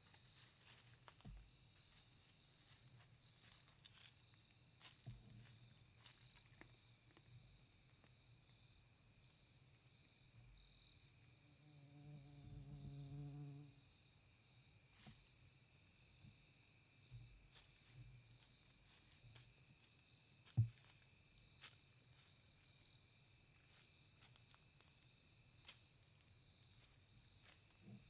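Crickets trilling in a steady, high-pitched chorus. A brief low hum rises near the middle, and a single sharp click comes about twenty seconds in.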